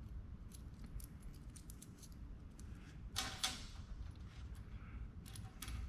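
Small metal parts clicking and clinking as they are handled, with a brief louder clatter about three seconds in.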